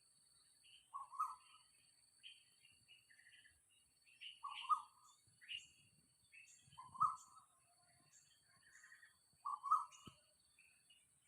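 Asian koel calling, four loud, alike calls spaced about two and a half seconds apart. Fainter chirps of other small birds sound in between.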